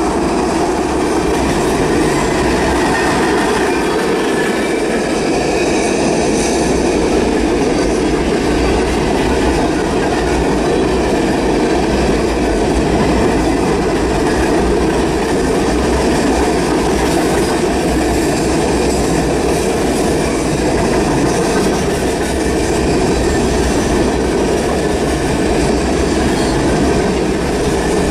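Norfolk Southern freight train cars rolling past close to the track: a steady, loud rumble of steel wheels on rail that does not let up.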